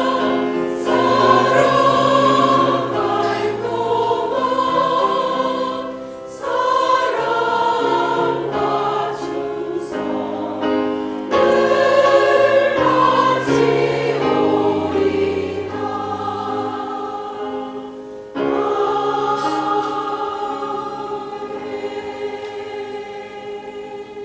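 A choir singing in held, sustained chords, phrase after phrase, with fresh entries about 6, 11 and 18 seconds in. The last chord fades away near the end.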